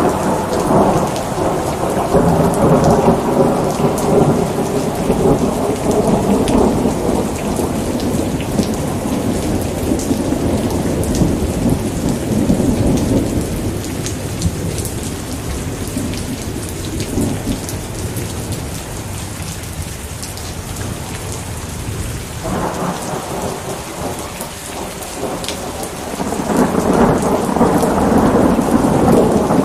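Steady heavy rain with rolling thunder: a long rumble at the start that slowly dies away over about half the time, then another rumble that builds up and grows louder near the end.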